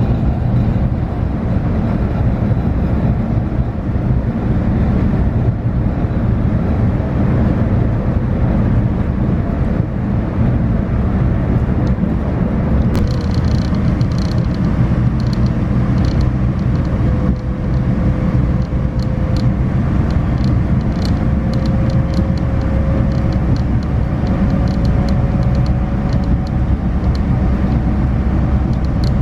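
Steady low rumble of a vehicle in motion, heard from inside, with a faint whine that slowly rises in pitch through the second half and fine rapid clicking from about halfway through.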